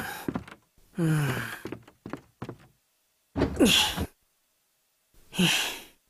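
A cartoon character's short wordless vocal sounds, with a few light knocks: a brief falling hum about a second in, and two breathy gasp- or sigh-like bursts later on, the first of them rising in pitch.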